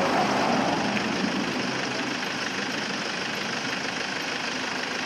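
Truck's diesel engine idling steadily.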